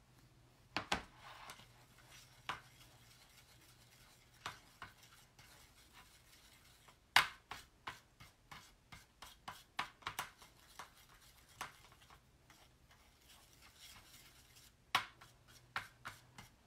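A small stick tapping and scraping in a plastic paint palette and a paste jar while chalk paste is stirred and mixed: light irregular clicks and short scrapes, with a sharper tap about seven seconds in and another near the end.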